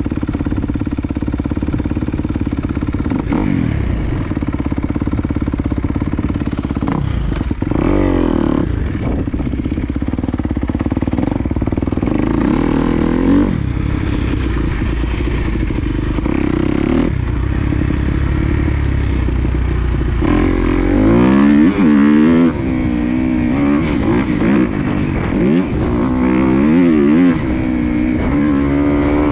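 A 2020 Kawasaki KX250's four-stroke single-cylinder engine running at low revs with a few short throttle blips. About two-thirds of the way in it starts revving up and down again and again as the bike accelerates.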